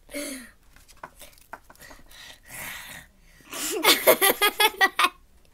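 A girl laughing with a mouthful of drink: a short giggle at first, some soft wet clicks and a breathy rush, then about three and a half seconds in a loud burst of rapid laughter that sprays the drink out.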